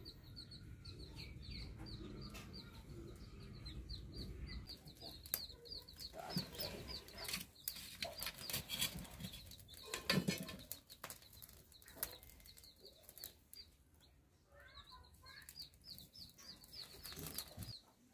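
Baby chicks peeping over and over in high, thin cheeps, several a second. Under them are scattered crackles and knocks from a plucked chicken being singed over the glowing embers of a clay stove, loudest about ten seconds in.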